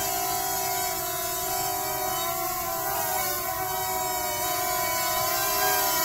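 Parrot Swing quadcopter minidrone's four propellers whining steadily as it hovers, the pitch wavering briefly about three seconds in and the whine getting a little louder near the end as it comes close.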